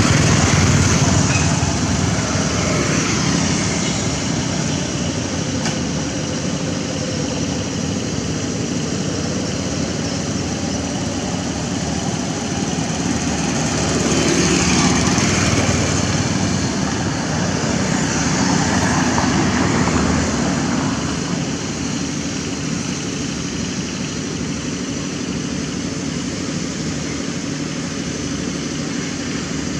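Road traffic: motor vehicle engines running steadily, swelling louder several times as vehicles pass by.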